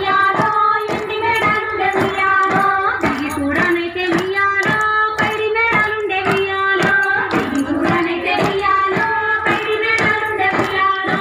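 Bathukamma folk song sung by women's voices, with steady hand clapping about twice a second keeping the beat.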